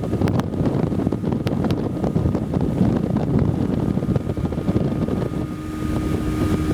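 Wind buffeting the microphone aboard a motorboat under way, over the steady drone of the boat's motor. A few sharp clicks come in the first two seconds, and a steady whine rises out of the noise near the end.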